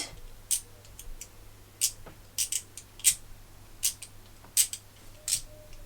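A small 3D-printed plastic clicker fidget toy, like a mouse button, being clicked by hand: about nine sharp clicks at irregular intervals.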